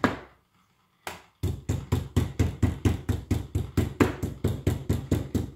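Raw beef slices being pounded on a textured tenderizing board with a metal spoon, a rapid, even series of dull knocks, about six a second. The knocks start after a short pause about a second in and stop just before the end.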